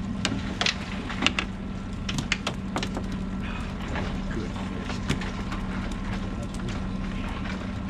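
Scattered sharp clicks and taps of fishing gear and hooked herring knocking against an aluminium boat as the sabiki rigs come aboard, thickest in the first few seconds, over a steady low hum.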